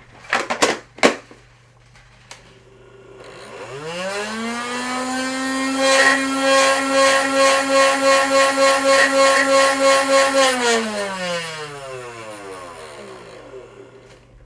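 Nerf Rival blaster's flywheel motors powered by D batteries: a few handling clicks, then the motors spin up in a rising whine, hold a steady speed with a regular pulsing for several seconds, and wind down in a falling whine.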